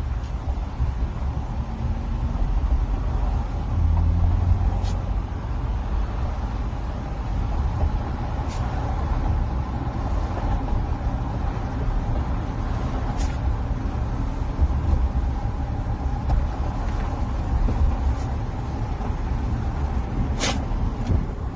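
Steady low road rumble inside a moving car's cabin, with a few brief sharp clicks or rattles scattered through it.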